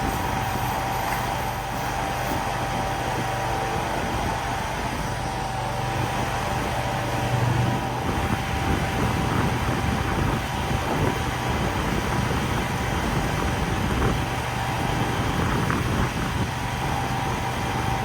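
A vehicle engine running steadily, with a constant low hum and a steady higher tone over it.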